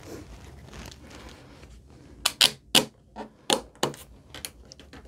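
Orange one-handed bar clamp being squeezed tight: a string of about eight sharp clicks, roughly three a second, from about two seconds in.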